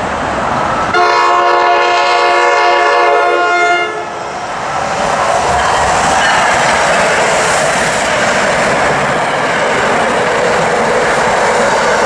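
An NJ Transit electric train's horn sounds one long blast of several tones at once, starting about a second in and lasting nearly three seconds. The train's noise on the rails carries on steadily as it runs past.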